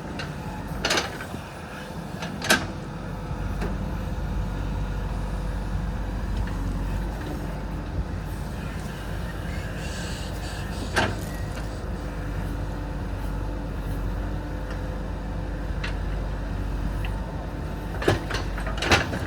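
JCB 3DX backhoe loader's diesel engine running steadily under working load. Sharp clanks and knocks come through it about a second in, a couple of seconds later, about 11 seconds in, and twice near the end.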